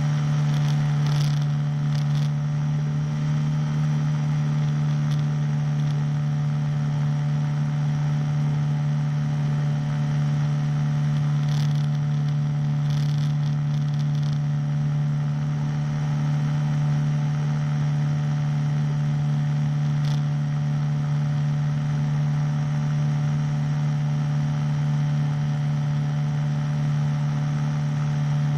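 Small single-cylinder engine of a powered hang glider running steadily at constant power during a climb, with rushing air noise and a few brief ticks.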